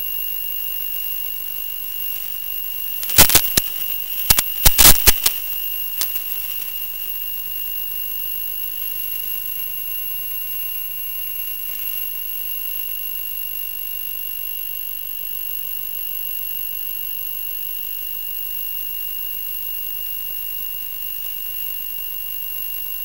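Steady high-pitched electronic whine over a hiss. A burst of sharp clicks comes about three to five seconds in and is the loudest part.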